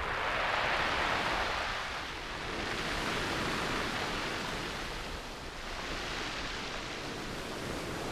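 Small waves breaking and washing up a beach, the surf swelling and fading three times.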